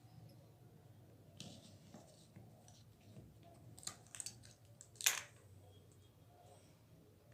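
Small screwdriver tightening a tiny screw into a fishing reel's plastic body: faint scattered clicks and scrapes, the sharpest click about five seconds in.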